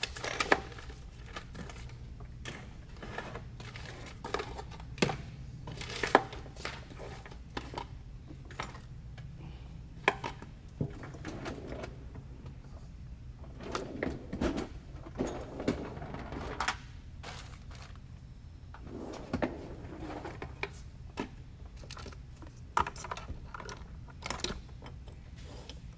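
Scattered clicks, knocks and rustling of small objects being picked up, moved and set down on a workbench, over a steady low background hum.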